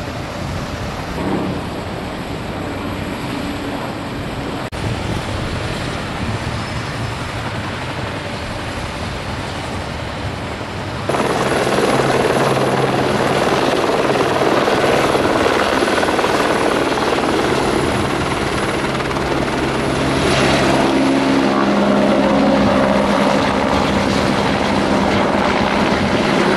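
Helicopters running at a riverside helipad: steady turbine and rotor noise with a low hum under it. About eleven seconds in it jumps suddenly louder and stays loud as a second helicopter runs up on the pad and lifts off.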